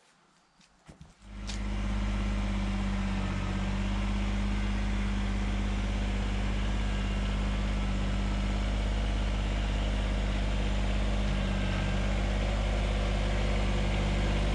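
Kubota compact tractor's diesel engine running at a steady speed, coming in loud about a second in and holding an even, unchanging drone.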